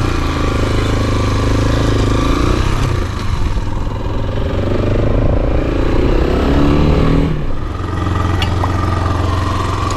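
Motoland XR 250 enduro motorcycle's single-cylinder four-stroke engine pulling away: the revs climb in two pulls as it accelerates through the gears, then drop back to a steady idle about eight seconds in.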